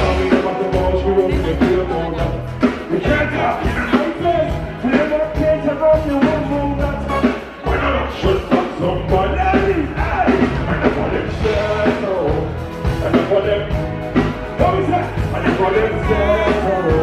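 Live band music: a singer's voice over a steady bass beat.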